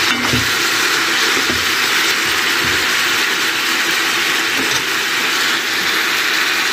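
Onion, carrot and tomato sizzling steadily as they fry in a cast-iron skillet, with a few light knocks of a stirring spoon against the pan in the first three seconds.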